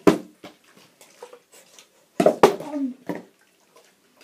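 Partly filled plastic water bottles thudding onto carpet as they land from bottle flips, with the water inside sloshing: one right at the start and another about two and a half seconds in.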